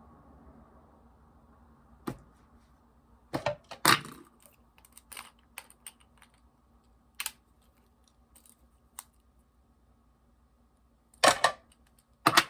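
Plastic fidget toys being handled: scattered sharp clicks and taps, a few close together about three to four seconds in and another loud cluster near the end.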